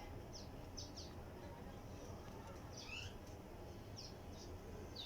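A small bird chirping: short, high, falling chirps several times over a faint low hum.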